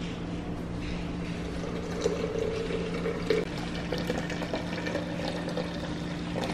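Boiling water being poured into a blender jar over gelatin powder, a steady pouring and filling sound that grows stronger for about a second from around two seconds in.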